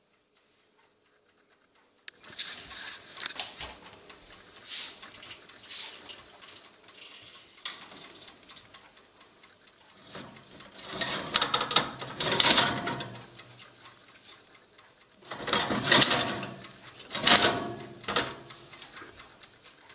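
The door of a countertop electric oven opening and a metal pizza pan scraping and rattling on the oven's wire rack as it is pulled out. The noise starts suddenly about two seconds in and comes in uneven bursts, loudest about halfway through and again near the end.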